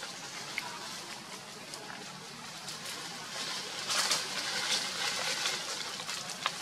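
Dry leaf litter rustling and crackling under macaques' feet and hands as they move about, busiest and loudest about four seconds in.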